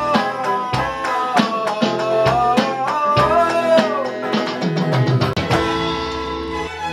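Electric guitar and electronic drum kit playing an ornamented melody that bends and glides over a steady beat. A little over five seconds in the song ends and slower, sustained music takes over.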